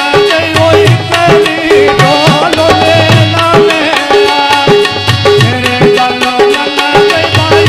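Harmonium playing a melody over a steady hand-drum rhythm with deep bass strokes, live folk-song accompaniment.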